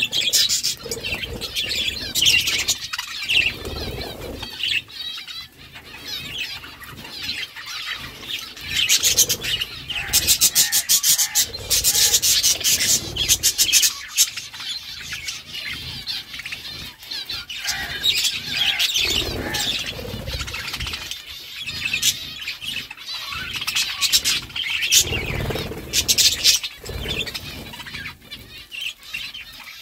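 Several budgerigars chirping and chattering without pause, mixed with many sharp clicks, which come thickest about a third of the way in.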